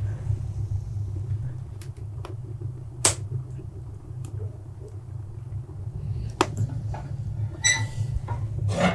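Split logs burning in a wood-fired sauna stove's firebox: a low steady rumble with a few sharp crackles and pops, the loudest about three seconds in. A ringing metal clank of the stove's steel near the end.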